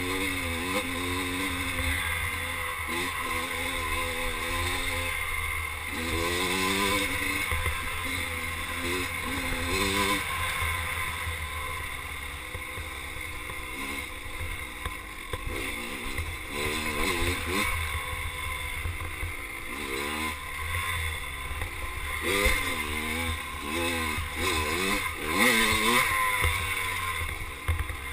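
Dirt bike engine being ridden hard, revving up and dropping back again and again as the throttle is worked, with a few knocks near the end.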